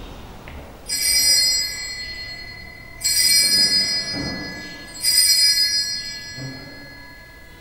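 Small altar bells rung three times, about two seconds apart, each ring bright and high and fading away; this is the ringing at the elevation of the chalice during the consecration at Mass.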